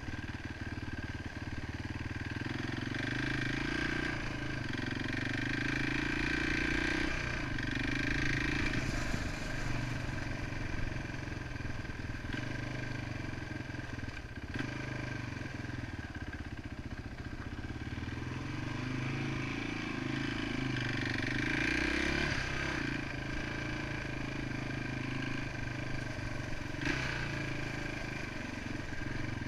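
1993 Yamaha XT 350's air-cooled single-cylinder four-stroke engine running as the bike is ridden, rising and falling in pitch with the throttle. Its pitch climbs and holds twice, a few seconds in and again about two-thirds through, with steadier running between.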